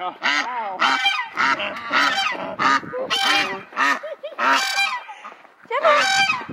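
A domestic goose honking over and over, about two loud honks a second, with a short lull about five seconds in.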